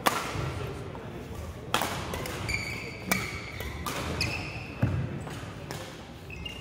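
Badminton rally: rackets strike the shuttlecock with sharp hits about once a second, and each hit rings on briefly in the hall. Shoes squeak high on the wooden court floor in the middle, and footfalls thud.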